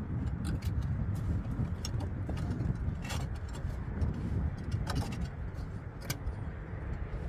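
A few short, light clicks as a metal valley clip is worked into place against the roof tiles and valley flashing, over a steady low rumble.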